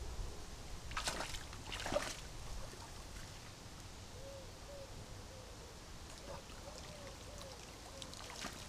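Distant splashing as an angler wades and nets a fish in a shallow river, with two sharper splashes about one and two seconds in over a low rumble. In the second half a bird gives a faint run of short, low calls.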